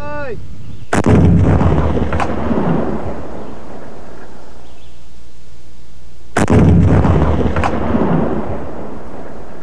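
Two M72 66 mm rocket launcher firings: each a sudden loud blast that rolls off in a rumbling echo over about two seconds, the first about a second in and the second about five seconds later.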